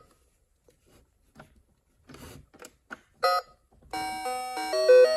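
Faint handling clicks and rustles, a short electronic ding about three seconds in, then a tinkly electronic melody of held, stepping notes from about four seconds in, like a doorbell or toy chime tune.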